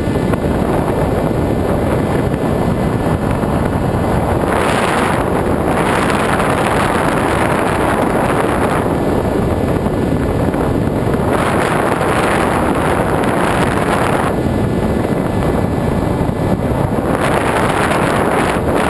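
Airflow rushing over the GoPro's microphone on an FPV radio-controlled glider in flight: a loud, steady rush that swells brighter and hissier several times, as the airspeed changes.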